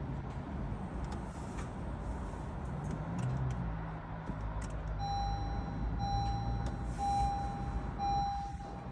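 Car engine idling steadily. About halfway through, an electronic beep starts, repeating about once a second.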